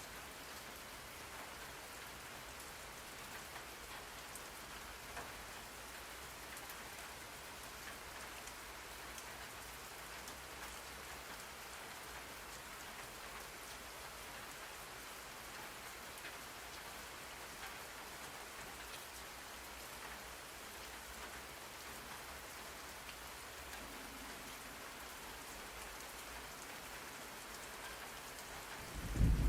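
Steady rain falling, with scattered faint drop ticks. Right at the end a loud, low thunder rumble breaks in.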